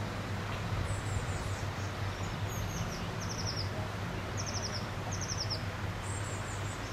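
A small songbird chirping: a string of short, high, falling trills about once a second, over a steady low hum of background noise.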